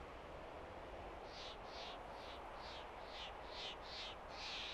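A bird calling a quick series of short, high notes, about three a second, starting about a second in and getting louder and longer toward the end, over a steady wind-like rush with a low rumble.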